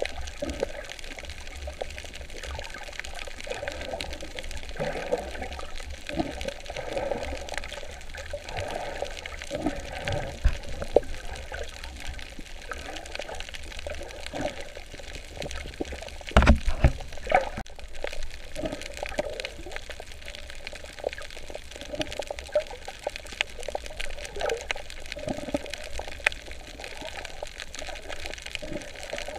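Water sloshing and bubbling heard underwater while snorkelling, irregular and continuous, with a brief cluster of louder knocks a little past halfway.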